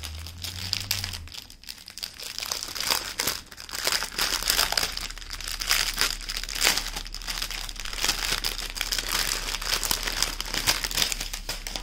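Clear plastic packaging being handled and crinkling with irregular crackles throughout, as a diamond painting canvas and its kit are unpacked.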